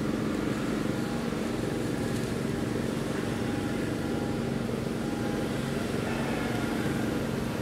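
A steady low mechanical hum at an even level, with no changes or sudden sounds.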